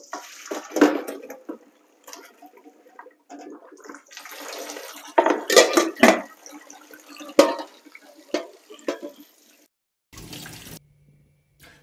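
Water splashing into a stainless steel sink as blanched cauliflower is drained and cooled in a metal colander, with several knocks of the pan and colander against each other and the sink about halfway through.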